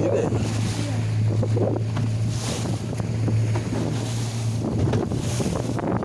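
Small boat's engine running with a steady low hum as the boat crosses choppy sea. Wind buffets the microphone in gusts, mixed with the rush and splash of water along the hull; the engine note dips briefly about four and a half seconds in.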